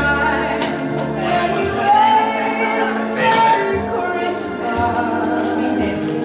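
A woman singing into a handheld microphone over a backing track, holding long notes above a steady bass line.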